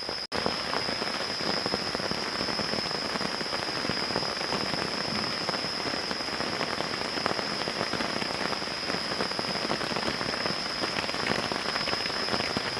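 Steady rain falling in the forest, an even hiss thick with the patter of individual drops. A steady high-pitched tone runs underneath, and the sound cuts out for an instant about a third of a second in.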